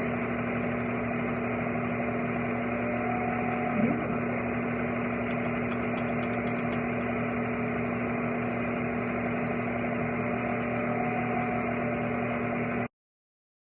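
Small electric motor running steadily with a constant low hum; it cuts off suddenly near the end.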